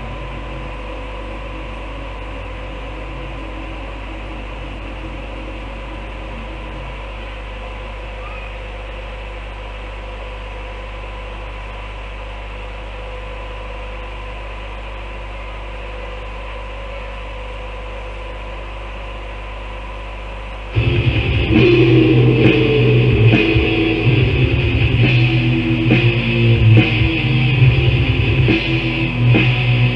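A steady low hum with a few thin held tones for about twenty seconds, then a death metal band comes in abruptly and loud, with heavily distorted electric guitars and pounding drums, on a 1994 demo cassette recording.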